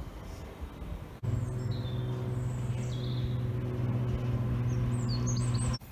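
Steady low mechanical hum of a cable car ropeway running overhead, starting suddenly about a second in and cutting off just before the end, with small birds chirping high above it.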